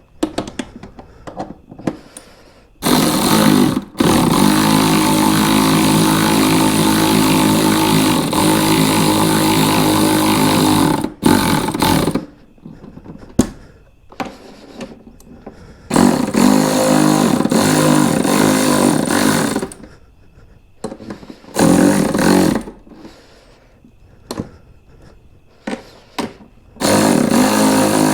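Handheld power drill running under load in several bursts, the longest about seven seconds, each holding a steady pitch and stopping abruptly. The drilling most likely opens mounting holes in a saddlebag to fix a fitment problem.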